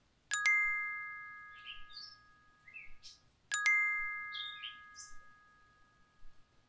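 Two synthetic bell dings, a notification-bell sound effect. Each is struck twice in quick succession and rings out, fading over about three seconds, with short chirping glides in between.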